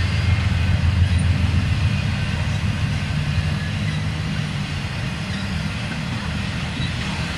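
Intermodal freight cars, double-stack container cars and trailers on spine cars, rolling past on steel wheels. There is a steady low rumble that eases a little toward the end.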